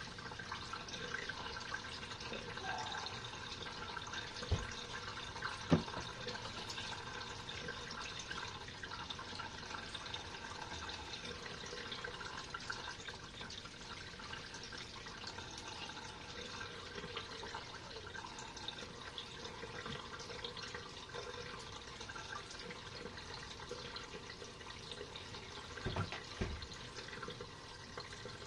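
Water running and trickling steadily in a small RV washing machine's tub as it drains after the final rinse, with a few short knocks, two early on and two near the end.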